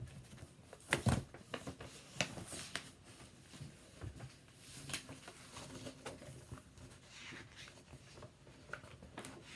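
Paper pages of a notebook being turned and handled: a string of short rustles and soft clicks, the loudest about a second in.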